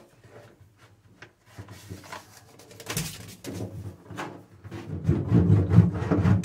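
Foil-faced self-adhesive sound-deadening mat being pressed and rubbed down by hand onto the steel side panel of a car boot. A scuffing, rubbing sound that starts faint and grows louder over the last couple of seconds.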